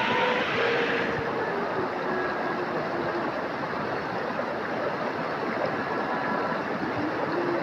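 Steady rush of a flowing river, an even water noise with no breaks.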